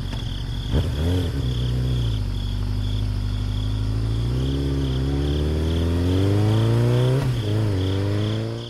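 A motor running and revving, its pitch climbing steadily, dropping sharply about seven seconds in, then climbing again before it cuts off. A faint high beeping pulses throughout.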